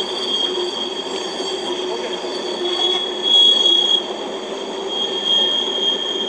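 Passing freight train, its steel wheels squealing against the rails in steady high-pitched tones over the rumble of rolling cars. The squeal swells loudest about three seconds in.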